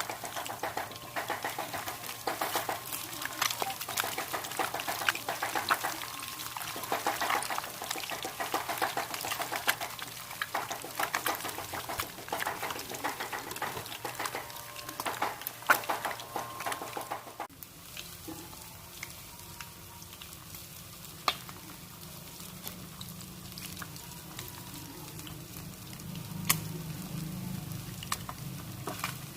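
Catfish frying in hot oil, sizzling with dense crackling and popping. About two-thirds of the way through it cuts to a much quieter stretch: a low hum with only occasional pops.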